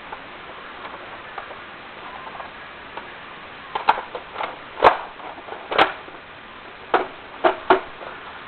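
Nerf Longshot blaster being handled: a run of sharp plastic clicks and clacks, about seven of them in the second half, the loudest near the middle.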